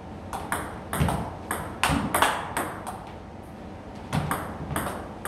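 Table tennis rally: the ball clicks sharply off the paddles, one fitted with the Tibhar Hybrid MK rubber under test, and bounces on the table in a quick alternating rhythm. The hits break off for about a second near the middle, then resume.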